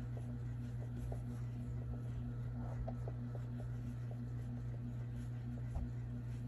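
Soft rustles and small clicks of a crochet hook working yarn into double crochet stitches, over a steady low hum, with one small knock near the end.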